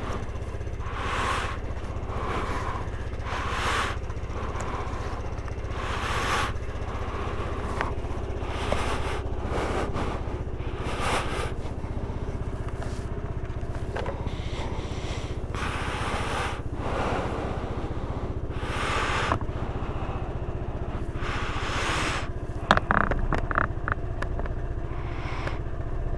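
Motorcycle engine running steadily under recurring surges of rushing wind noise on the microphone, with a few sharp knocks near the end.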